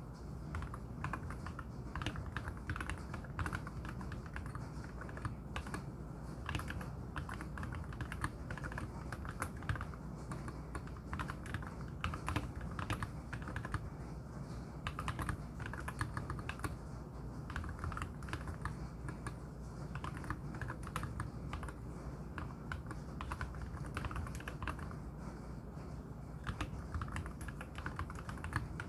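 Continuous typing on a MelGeek Z70 Ultra mechanical keyboard with lubed KTT Wine switches and MA-profile spherical keycaps: a dense, unbroken run of keystrokes with a low, wood-block-like clack.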